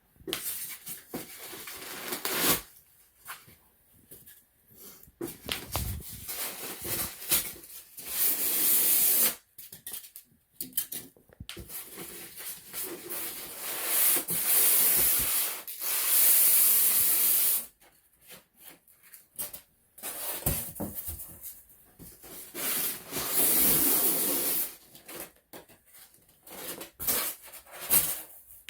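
Packing material and cardboard rustling and scraping as a large, tightly packed box is unpacked by hand: several long hissing scrapes with short knocks and rustles between them.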